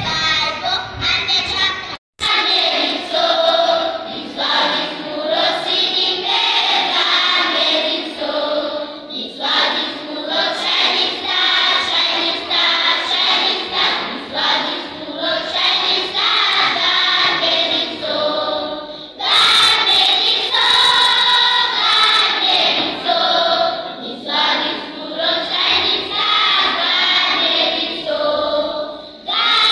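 Children's choir singing together. It opens with a few girls singing into a microphone, then cuts off suddenly about two seconds in before the full group of children's voices takes over.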